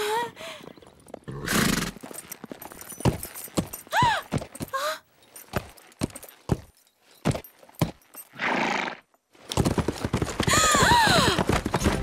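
Cartoon horse sound effects: hooves clopping in scattered knocks and a couple of short whinnies about four and five seconds in, with two short rushes of noise. Near the end several horses whinny together, the loudest part.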